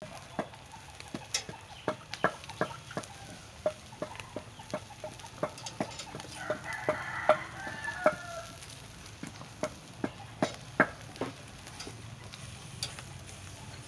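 Metal grill tongs clicking and tapping against a charcoal grill's grate as salmon fins are turned, in irregular sharp taps about one or two a second. A short warbling call sounds about seven seconds in.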